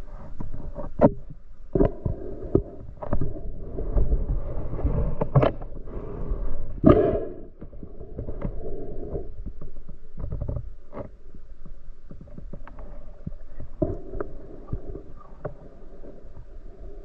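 Muffled underwater sound picked up by a camera in a waterproof housing during a spearfishing dive: a low rumble with irregular knocks and clicks, the loudest knock about seven seconds in.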